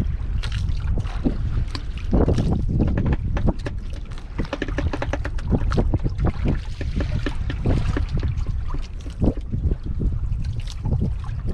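Wind buffeting the microphone over water slapping and splashing irregularly against a small boat's hull.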